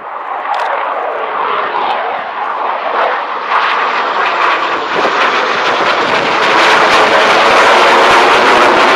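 Jet noise from a pair of Saab JAS 39 Gripen fighters, each powered by a Volvo RM12 turbofan, flying over in formation. The rushing roar grows steadily louder as they approach and is loudest near the end.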